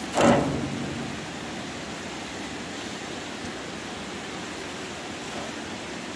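A short, sudden, loud sound as a rotten piece of wood tied to a rope is dropped over the edge of a bridge and the line is pulled taut. It fades within about half a second, leaving the steady rush of flowing water below.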